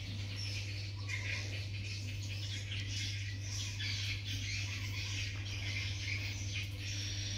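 Faint high-pitched chirping and squeaking that goes on throughout, over a steady low hum.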